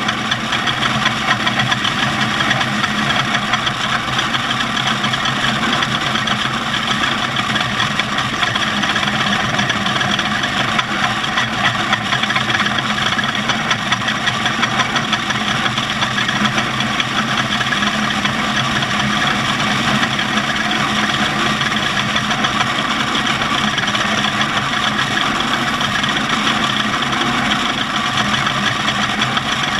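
Off-road race vehicle's engine running at a steady, unchanging pitch, with no revving.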